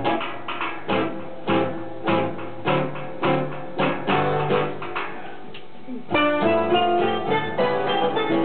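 Live instrumental music from a small acoustic group, with acoustic guitar and accordion. For the first six seconds it is plucked notes that ring and fade; a fuller, brighter melody line of held notes comes in about six seconds in.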